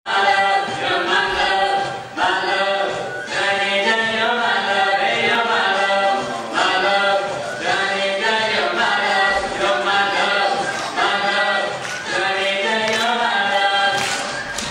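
A male and a female singer performing an Indian song together through handheld microphones, unaccompanied.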